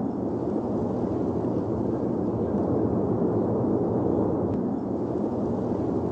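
Rocket motor of an ascending R-36M2 'Voivode' liquid-fuelled intercontinental ballistic missile: a deep, steady rumbling roar of its exhaust as it climbs after launch.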